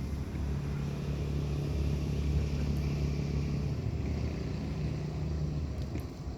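An engine running steadily with a low hum, easing off slightly near the end.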